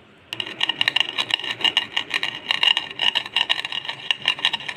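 A wooden rolling pin rolled back and forth over roasted cumin seeds on a wooden board, crushing them with a gritty scrape made of many small crackling clicks. It starts a moment in.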